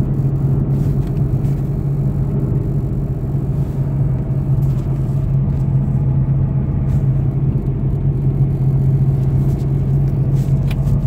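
Car engine running steadily under light load in second gear at low speed, heard inside the cabin as a steady low drone with faint irregular ticks over it. The car has an rpm-linked rubbing click, like a fan rubbing or hitting something, that is loudest when the engine is cold and below 4000 rpm.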